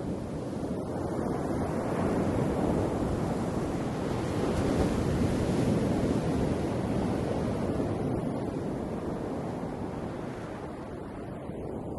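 Ocean waves: a continuous wash of surf that swells over the first several seconds and eases off toward the end.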